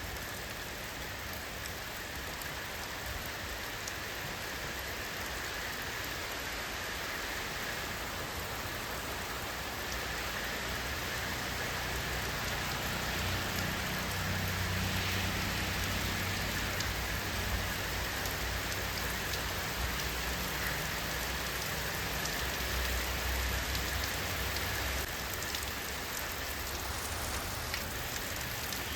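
Steady rain falling, an even hiss of many drops on a surface. A low rumble swells beneath it through the middle and fades again near the end.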